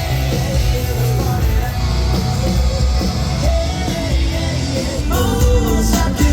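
Live amplified country band music with a singer's voice, heavy bass and drums underneath.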